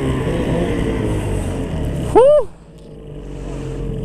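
Snowmobile engine running, with a sudden sharp rev about two seconds in whose pitch shoots up and falls straight back, the loudest moment; the engine then falls much quieter as the sled bogs down on a snow mound.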